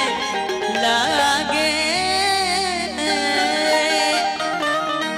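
A male singer singing a Bhojpuri stage song into a microphone, drawing out long wavering notes over steady instrumental backing.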